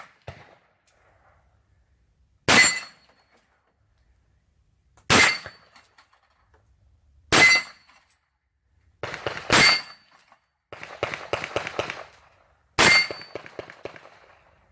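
Five single rifle shots spaced about two to three seconds apart, each followed by a brief metallic ring from a steel target being hit. A rattling noise runs for a couple of seconds between the fourth and fifth shots.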